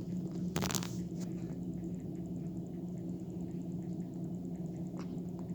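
A baby hiccuping: one sharp hiccup about half a second in, with fainter clicks later, over a steady low hum.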